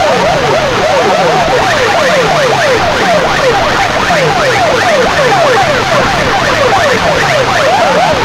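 Competition sound system blaring siren-like effects through its speakers: many fast rising-and-falling wails overlap, and a lower falling tone repeats about once a second.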